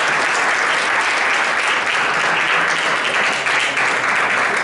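Audience applauding steadily at full strength.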